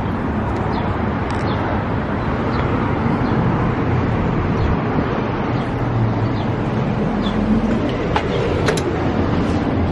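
City street traffic noise: a steady rumble of passing cars, with a couple of sharp clicks near the end.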